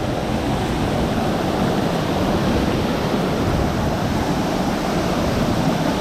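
A waterfall's falling water rushing steadily.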